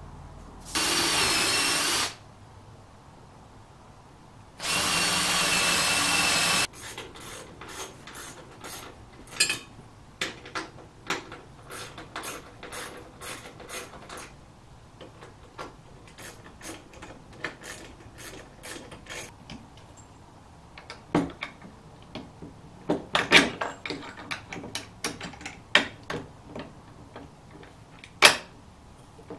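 Cordless drill running in two bursts of about one and two seconds, pre-drilling screw holes in plywood. Then a long run of quick, even clicks, typical of a ratchet wrench turning in the screws for a metal leg bracket, and a few sharp knocks near the end.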